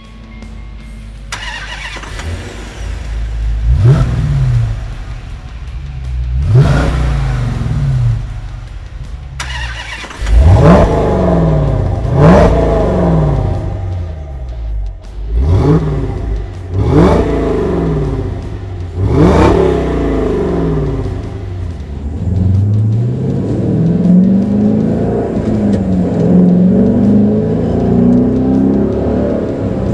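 2009 Dodge Challenger R/T's 5.7-litre Hemi V8 heard at the exhaust tip, idling and then blipped about seven times, each rev climbing and falling quickly. From about two-thirds of the way through, the engine pulls in long rising sweeps under acceleration, heard from inside the car.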